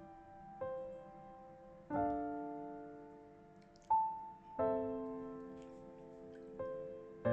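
Slow, gentle solo piano music: single notes and soft chords struck a couple of seconds apart, each left to ring and fade.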